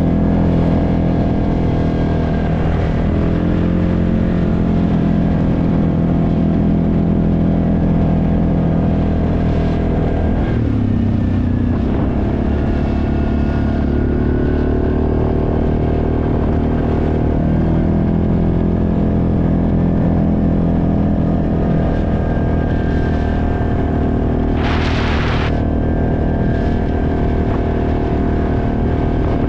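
ATV engine running steadily while riding, its pitch falling about ten seconds in, then steady again. A brief hiss comes in near the end.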